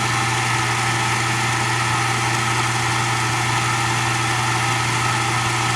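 Framon FRA-2D key originating machine running steadily, its motor and cutter spinning with an even hum.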